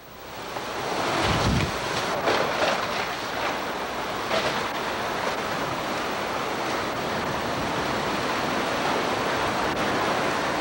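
Hurricane-force wind and driving rain from Hurricane Iniki, a dense steady rush buffeting the camcorder microphone. It comes up over the first second and then holds, with a few brief louder gusts in the first few seconds.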